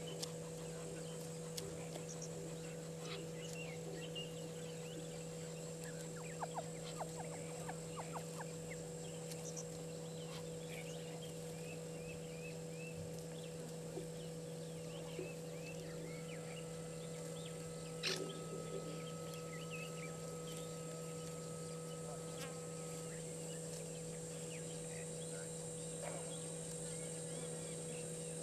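Bush ambience: a steady electrical hum under faint, scattered bird chirps and insect ticks, with a few sharp clicks about a quarter of the way in and a louder click past halfway.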